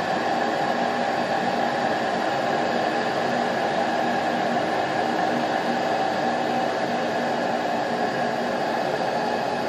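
Gas furnace draft inducer motor running steadily with a constant whir and hum, the pre-ignition stage of the furnace's start-up before the igniter lights.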